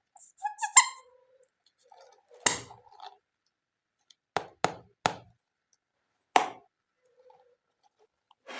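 Toy animal figures being handled and set down: a handful of sharp knocks spaced irregularly, after a quick cluster of clicks and clacks near the start.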